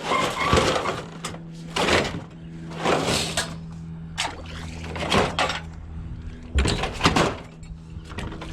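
Scrap-yard machinery: a steady engine hum, broken about once a second by loud, sudden clatters and crashes.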